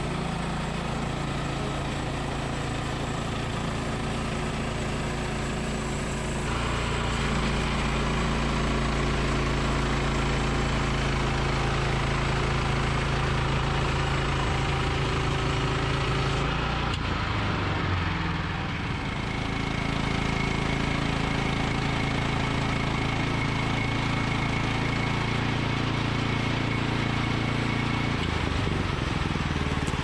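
Woodland Mills bandsaw mill's engine running steadily under load as the band blade saws through a green alder cant. It gets a little louder about six seconds in and dips briefly around eighteen seconds.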